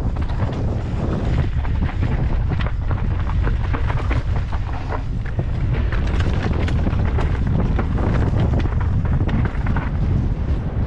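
Wind buffeting a GoPro's microphone in a steady low rumble while a mountain bike descends a rocky dirt trail, with frequent rattles and knocks from the tyres, chain and frame over stones and ruts.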